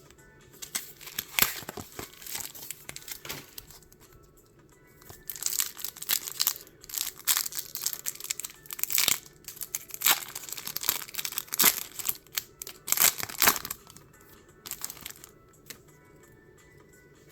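Plastic and foil trading-card packaging crinkling and tearing as Pokémon card packs are opened by hand, in irregular stretches, over quiet background music.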